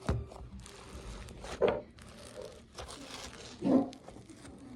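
Slime being stretched and squished by hand, a crackly tearing sound with three short louder squelches or pops: one right at the start, one a little under two seconds in, and one near the end.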